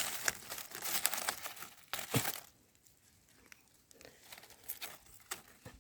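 Dry leaf litter rustling and crackling as hands clear it away and pick egg mushrooms from the ground. The rustling is busy for the first couple of seconds, then thins to a few faint crackles.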